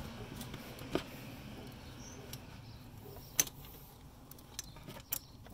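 A few scattered sharp metallic clicks from a wrench being worked on a thermostat housing bolt, the loudest about three and a half seconds in and a quick pair near the end, over a faint low steady hum.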